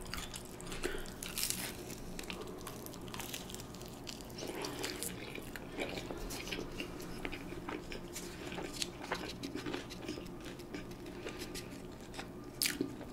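A person chewing a chicken quesadilla with the mouth close to the microphone, with scattered soft crunches and wet mouth clicks over a faint steady hum.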